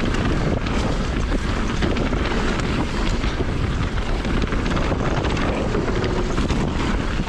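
Mountain bike rolling fast down a dirt trail: steady wind rush on the camera microphone mixed with tyre noise and a constant patter of small clicks and rattles from the bike over the ground.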